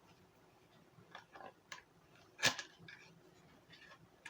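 Handling and opening a small cardboard accessory box: scattered light scrapes and clicks, with one sharper snap about two and a half seconds in.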